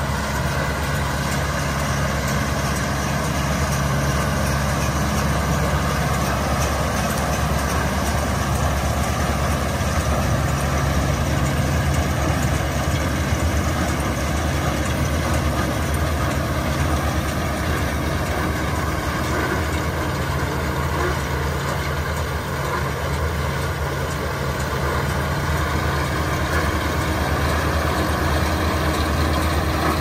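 John Deere 5100M tractor's four-cylinder diesel engine running steadily under load while a John Deere 450M round baler works hay behind it.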